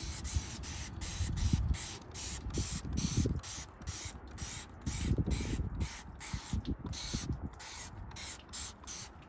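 Cordless drill cranking an Airstream scissor stabilizer jack down onto a SnapPad. It gives a hiss that pulses about three times a second, with a few low thuds as the jack and pad take load.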